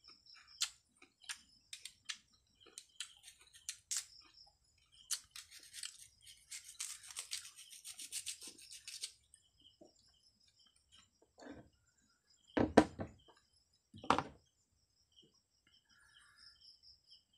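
Close-up chewing and crunching of crisp, unripe Indian mango: a run of short sharp crunches, then a denser stretch of rapid crunching lasting about three seconds. Two dull thumps later on are the loudest sounds.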